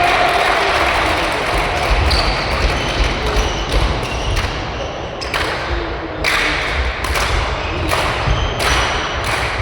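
Badminton rally in a sports hall: rackets striking the shuttlecock, with a quick run of sharp hits under a second apart in the second half, over a steady hall rumble.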